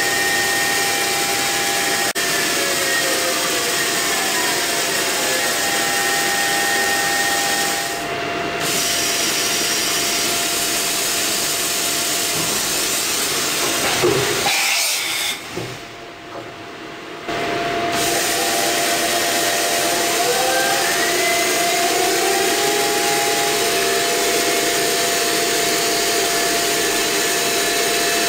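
Hardinge GX 600 vertical machining centre running through an automatic tool change. A steady machine hiss and hum runs throughout, with motor whines falling in pitch early on and rising again later. A sharp clunk comes about halfway through, followed by a brief quieter spell.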